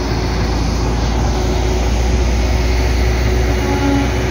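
Heavy city buses passing close by: a steady low rumble with road noise, an electric bus going by and an articulated bus following behind it.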